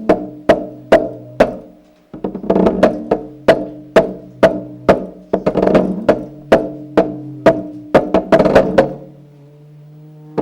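Experimental sound-art music: sharp, evenly spaced knocks about twice a second over a sustained low drone. Both break off briefly about two seconds in, and near the end the knocks stop, leaving the drone alone.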